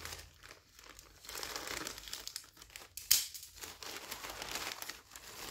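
A parcel's packaging crinkling and rustling as it is handled and opened, in irregular crackles with one sharper, louder crackle about three seconds in.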